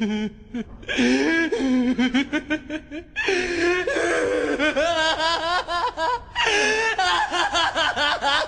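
A voice laughing hard in long runs of quick, pulsing bursts, its pitch rising and falling, broken by short pauses about a second in and about three seconds in.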